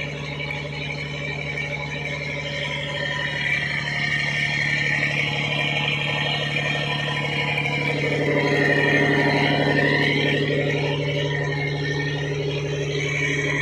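A fishing boat's inboard engine running steadily under load while towing a second boat, with water rushing along the hull. The water noise swells for a couple of seconds past the middle.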